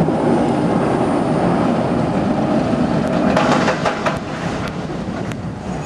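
Steady rushing noise of wind and motion aboard a moving Skyride aerial tram car, with a few brief clicks and rattles about three to four seconds in.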